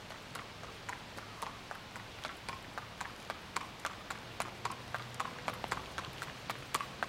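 A horse's hooves clip-clopping at a walk on a hard paved surface: a steady beat of sharp hoof strikes, about three a second.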